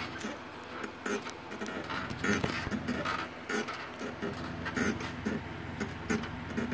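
Elliptical trainer being pedalled at a steady pace, its moving parts giving a repeated mechanical clatter, a little more than once a second, in time with the strides.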